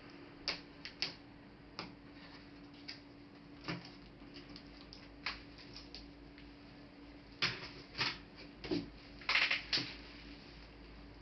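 Scattered clicks and light knocks from small parts and tools being handled as a Dell Inspiron N5110 laptop is taken apart. The clicks are mostly single and spaced out, then come in a denser, louder run about seven to ten seconds in, over a faint steady hum.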